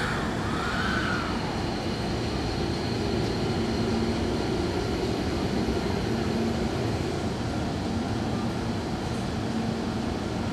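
Hankyu 1000 series electric train pulling out of a station: the steady running noise of the train with the whine and hum of its traction motors. The high whine fades after about seven seconds. A short tone rises and falls about a second in.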